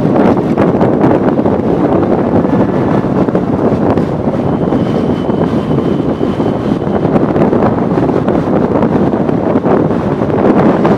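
Steady rush of wind buffeting the microphone, over the road and engine noise of a motorcycle riding at cruising speed on a highway.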